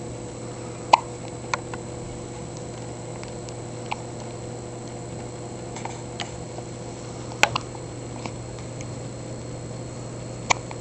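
A newborn baby hiccuping: about six short, sharp hiccups at irregular gaps of one to three seconds, the loudest about a second in and again past seven seconds, over a steady low hum.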